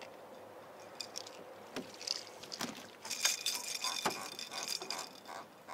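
A hooked catfish being landed by hand into an aluminium jon boat: splashing at the boat's side and a few sharp knocks, with a busy spell of splashing and clatter near the middle.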